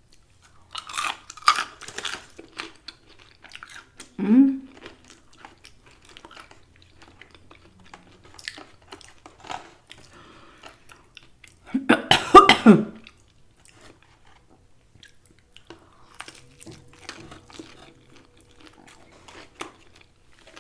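Close-mic chewing and crunching of Popeyes fried chicken, with wet mouth clicks, and a loud cough about twelve seconds in.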